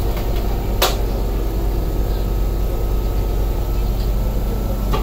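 Steady low hum of a Toden 7700 series tram's onboard equipment while the tram stands at a stop, with a sharp click about a second in and a fainter one near the end.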